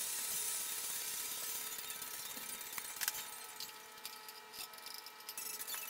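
Cast-iron bench vise parts handled and set down on a workbench: a sharp metallic clink about three seconds in, then a run of light clicks and rattles.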